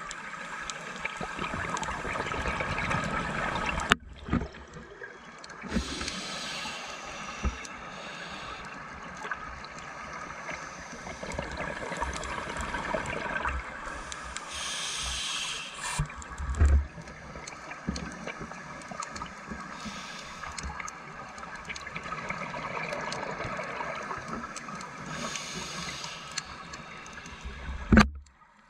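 Underwater sound of a scuba dive through a camera housing: the regulator's breathing hiss and gurgling exhaled bubbles come every few seconds over a steady background drone.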